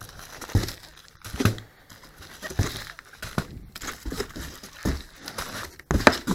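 Fireworks packaging being handled: crinkling and rustling with irregular knocks as packs are picked up and moved about.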